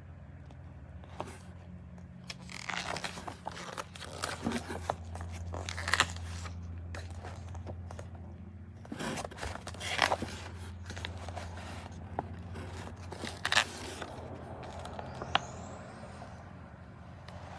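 Paper instruction manual being unfolded and leafed through: irregular rustling and crinkling with sharp clicks, over a steady low hum.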